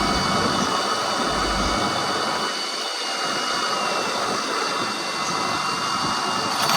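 Steady rushing noise of a fishing boat under way, its engine running with wind and water, and a thin steady high whine over it.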